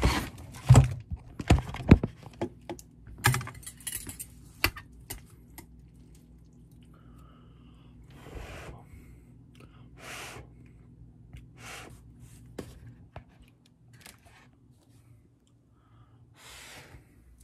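Sharp clicks and knocks of the phone and utensils being handled over a bowl of ramen, then a series of short breathy hisses of someone blowing on and slurping hot ramen noodles held up on chopsticks.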